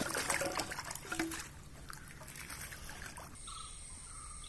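Water splashing and dribbling in the shallows at the edge of a rock pond as a landed fish is handled in the water. There are quick small splashes and drips at first, then it goes quieter. Near the end a steady high-pitched whine comes in.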